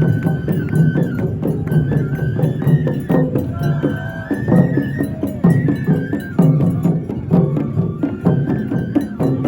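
Japanese festival music (matsuri-bayashi): a high flute melody of held, stepping notes over steady drum and percussion strikes.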